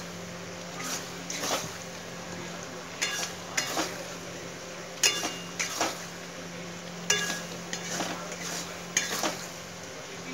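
Metal spatula scraping and clinking against a metal wok while stirring thick, oily rice pulao over a low flame: irregular strokes about once a second, some with a short metallic ring, over a steady low hum.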